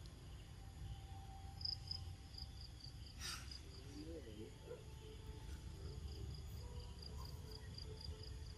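Insect chirping in a steady train of short high pulses, about five a second, pausing for a couple of seconds midway. During the pause come a short tick and a brief, low, wavering call.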